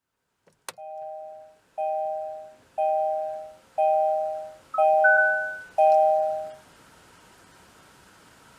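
An electronic two-note chime sounds six times, about once a second, after a short click. Each ding fades out before the next one, and the later ones are a little louder.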